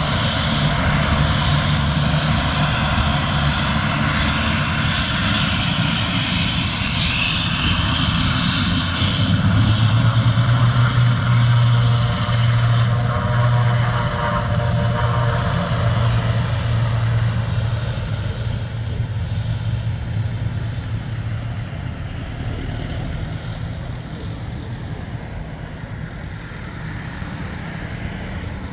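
Fokker 50 twin turboprop with six-blade propellers, a steady propeller drone with a whine above it. It grows loudest about ten seconds in, then fades as the aircraft moves away.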